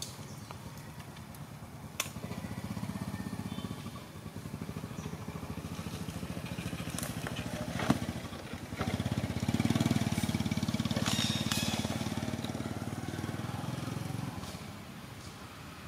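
An engine running with a fast, even beat. It gets louder about nine seconds in and dies away near the end. A sharp click comes about two seconds in and another about eight seconds in.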